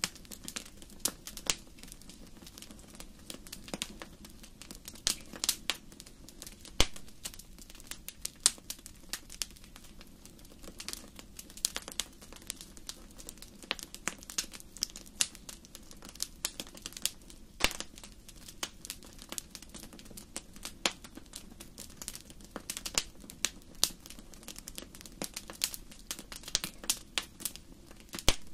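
Wood fire crackling in a fireplace: irregular sharp pops and snaps, a few much louder than the rest, over a low steady rumble of the flames.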